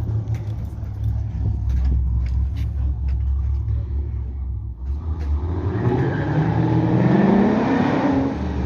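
2010 Chevrolet Camaro SS V8 idling with a steady low rumble, then, about five seconds in, revving up in one rising pull as the car accelerates.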